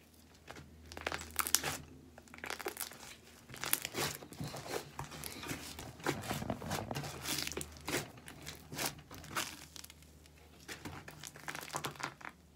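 Clay-mixed glitter slime being squeezed and stretched by hand, giving irregular sticky crackles and pops that die down about ten seconds in.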